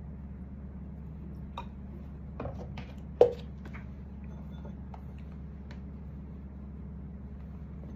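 Steady low hum of room noise with a few light, scattered clicks and one sharper knock about three seconds in.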